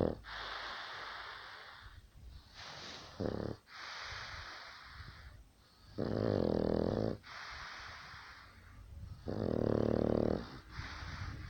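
Snoring: breathy, hissing breaths alternate with rattling, pitched snores. A short snore comes about three seconds in, and two longer, louder ones of over a second each come about six and nine seconds in.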